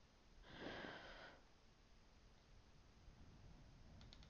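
Near silence: a soft breath about half a second in, then a few faint mouse clicks near the end.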